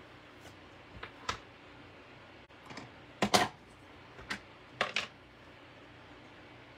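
Short plastic clicks and taps as a clear stamp sheet and an ink pad are handled on a tabletop, the pad's lid opened and set down. About half a dozen sharp clicks come between a second and five seconds in, the loudest pair about three and a half seconds in.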